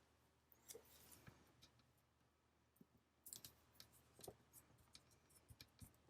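Faint rustling and scattered light clicks of paper stickers and cardstock being handled, busier in the second half.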